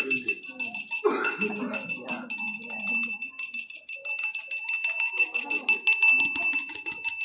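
Temple bell rung rapidly and without pause during an aarti, a bright steady ringing that cuts off suddenly just before the end, with people's voices murmuring underneath.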